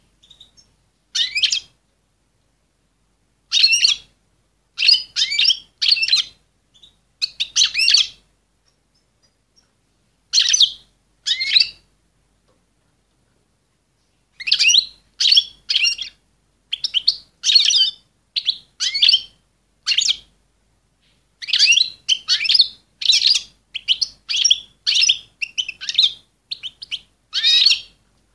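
Female European goldfinch in breeding condition calling, a sound used to bring males into breeding condition. Short bursts of high twittering chirps, each under a second, separated by pauses, coming thicker and faster in the second half after a silence of about two seconds.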